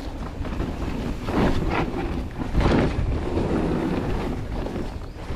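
Mountain bike riding fast down a dirt trail, recorded on a bike-mounted camera: wind buffets the microphone over the rumble and rattle of tyres and frame. There are louder jolts about one and a half and two and a half seconds in.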